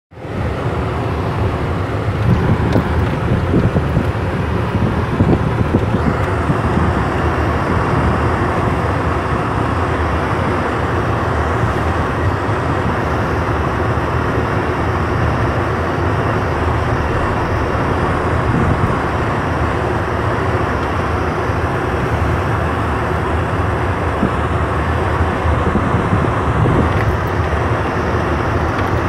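Vehicle engine and tyres rumbling steadily while driving slowly along a snow-covered dirt road, with a few brief low bumps from the rough surface.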